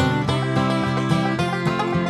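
Background music: a plucked-string tune with a steady beat.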